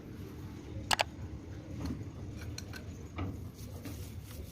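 Small sharp metallic clinks: a loud double clink about a second in, then a few fainter ticks, over a low steady background rumble.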